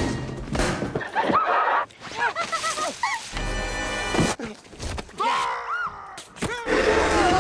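Slapstick falls from quickly cut comedy clips: several thuds and crashes of a body hitting walls and floors, with short cries and yelps, over music.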